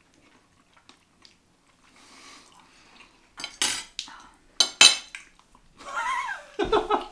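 Metal forks clinking and scraping against a ceramic plate, with a few sharp clinks in two clusters a few seconds in, followed near the end by a person's short laugh.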